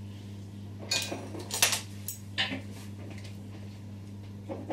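A few short clinks and knocks of kitchen utensils and glassware on the worktop, four or five close together in the middle and one near the end, over a steady low hum.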